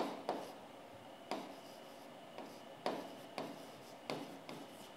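Pen stylus on an interactive touchscreen board while handwriting: faint scratching and about eight irregular, short taps as the tip meets the screen.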